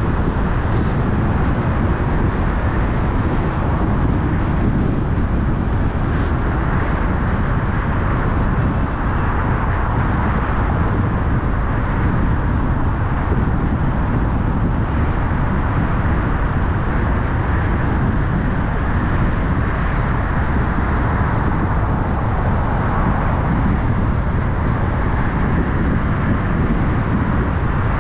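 A car driving: steady tyre and engine noise, heaviest in the low end, with no distinct events.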